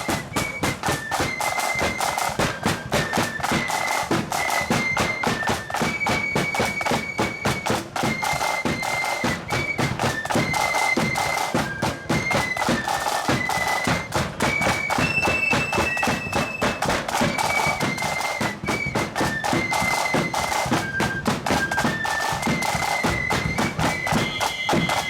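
Marching band playing a tune: a shrill unison melody of fifes or pipes over a steady, driving beat of marching drums.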